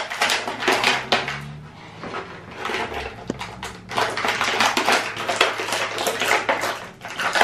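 Clear plastic packaging crinkling and crackling in rapid, irregular bursts as hands pull it open to free a small toy figure.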